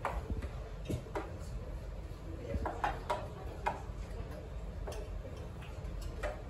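Café room ambience: scattered light clicks and taps over a low steady hum, with faint voices in the background.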